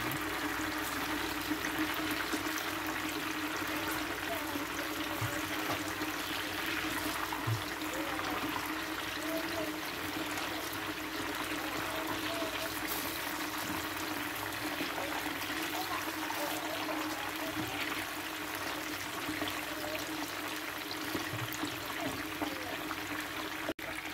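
Chicken wings deep-frying in hot oil in a pan: a steady sizzling and bubbling, with a brief break near the end.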